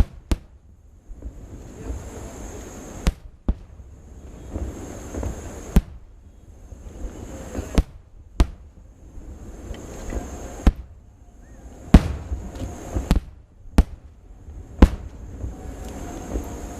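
Aerial fireworks bursting: about a dozen sharp bangs at irregular intervals, the loudest about twelve seconds in.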